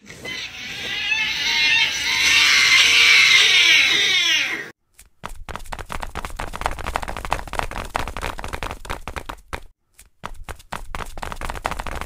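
Several cats screeching and yowling together, like a cat fight, for about four and a half seconds, then cutting off suddenly. After that comes a fast, uneven patter of clicks and taps.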